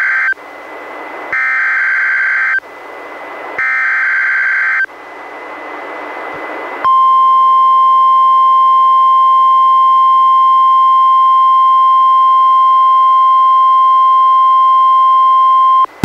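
NOAA Weather Radio broadcast as heard through a weather radio receiver: the three screeching SAME digital header bursts, with radio hiss between them, followed about seven seconds in by the steady 1050 Hz warning alert tone held for about nine seconds and then cutting off. Together they mark the start of a Special Marine Warning.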